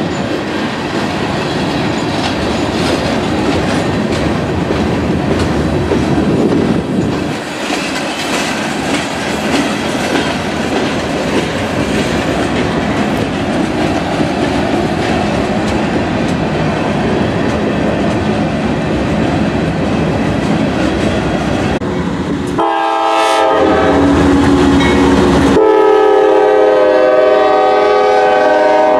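Freight train cars (hoppers, gondolas and tank cars) rolling past with a steady rumble of wheels on rail. Near the end a multi-chime locomotive horn sounds twice, a short blast and then a longer one that is still sounding at the close.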